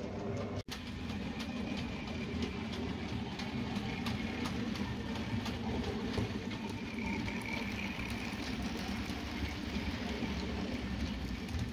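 OO gauge model pannier tank locomotive running with a steady motor hum, its train of goods wagons clicking over the rail joints.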